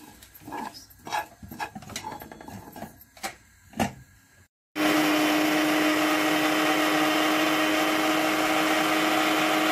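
Metal spoon scraping and stirring coriander and cumin seeds dry-roasting in a pan, in short irregular scrapes. About halfway through, an electric spice grinder starts abruptly and runs at a steady pitch, grinding the roasted coriander and cumin; it is the loudest sound.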